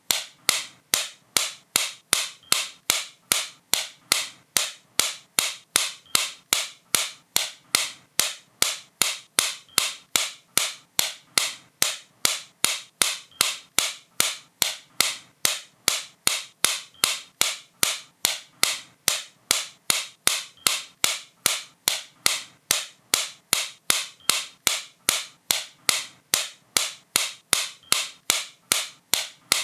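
Sharp, crisp clicks repeating at a steady, even rate of about two and a half a second.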